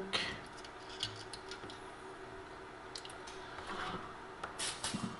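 Light handling noise at a circuit board: a few faint, scattered clicks and soft rubbing as coaxial cables and connectors are moved. A low steady hum sits underneath.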